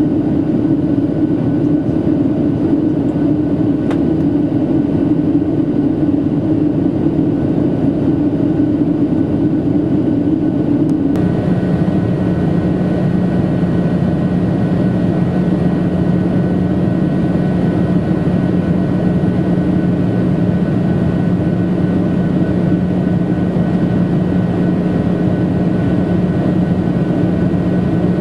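Cabin noise of a Boeing 737-700 in flight, heard from a seat over the wing: the steady drone of its CFM56-7 turbofan engines under a rush of airflow. About eleven seconds in, the hum drops abruptly to a lower pitch and the hiss above it brightens, then stays steady.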